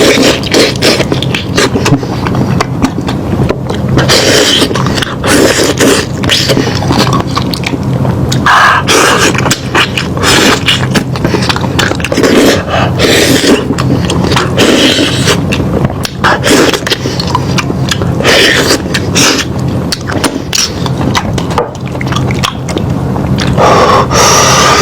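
Close-miked chewing of meat: a person's mouth smacking and clicking wetly, bite after bite, without pause.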